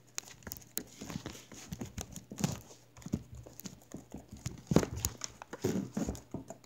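Handling noise from a camera being shaken and jostled by hand: irregular knocks and thumps with rubbing against the microphone, the loudest thump about five seconds in.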